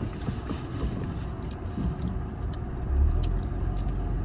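Car interior noise while driving: a steady low rumble of road and engine, with a brief louder low thump about three seconds in.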